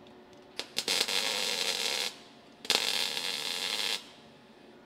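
MIG welder laying two short weld runs on thin sheet-steel car roof panel, filling the last small hole in a rust-repair patch. Each run is a crackling sizzle of about a second and a half, with a pause of about half a second between them.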